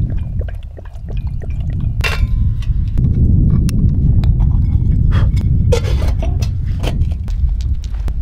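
Steady wind noise on the microphone, with scattered light clicks and clinks of camping gear being handled. The clinks come in a louder cluster about two seconds in and again about six seconds in.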